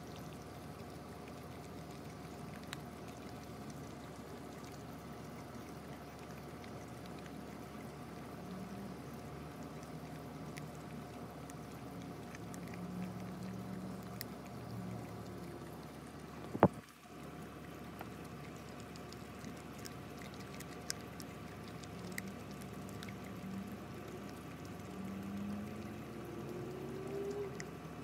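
A pit bull puppy chewing and licking a piece of raw chicken, making wet mouth sounds, with one sharp click a little past halfway.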